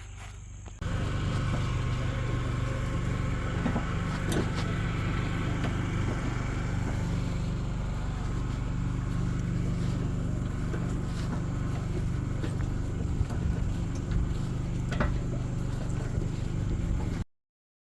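A motor vehicle running steadily, a low engine hum under road noise with a few scattered clicks. It starts abruptly about a second in and cuts off suddenly near the end.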